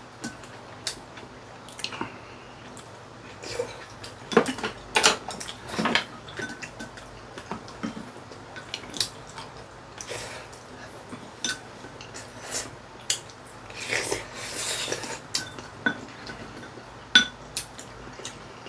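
Chopsticks and a spoon clicking and scraping against ceramic bowls while two people eat: irregular light clinks, busier around four to six seconds in and again around fourteen seconds in.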